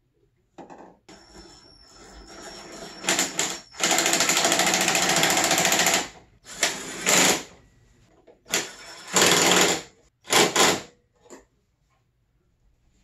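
Cordless impact driver running in several bursts as bolts are driven in, the longest burst about two seconds.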